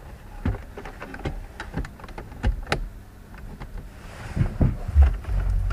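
Scattered clicks from switches and controls in a car's cabin while a newly fitted climate-control unit is tested. About five seconds in, a steady low rumble starts up and keeps going.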